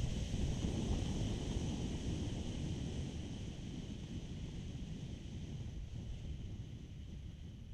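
Wind buffeting an action camera's microphone on a moving Kawasaki ER6f motorcycle: a low rumbling buffet with a steady hiss above it, easing off gradually.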